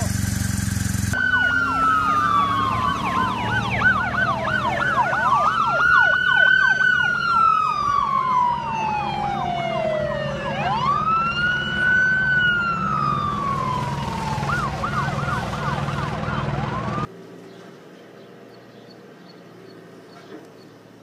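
Police car siren sounding, fast yelp sweeps over a slower rising-and-falling wail, cutting off suddenly about four seconds before the end.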